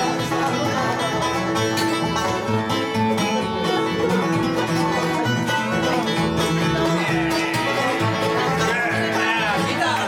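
Bluegrass band playing an instrumental break on acoustic guitar, banjo, mandolin, fiddle and upright bass, at a steady, driving pace.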